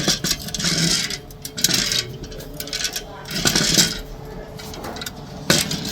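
Old Toyota Prius transmission input damper, removed from the car, turned by hand. Its loose internal parts clatter and clink in several short metallic bursts.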